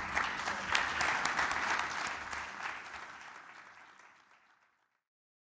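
Audience applauding, the clapping fading steadily away over about four seconds until it is gone.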